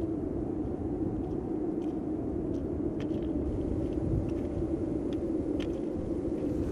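A steady low rumbling drone, with faint scattered clicks over it.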